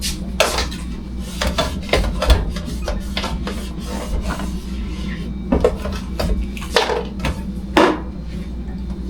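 Rubbing and scraping strokes with scattered clicks and knocks of hard items being handled, over a steady low hum.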